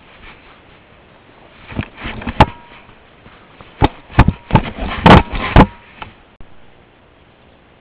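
A bear pawing and nosing a trail camera, knocking it around: a run of loud knocks, bumps and scrapes on the camera housing from about two to six seconds in, loudest in a cluster near the end.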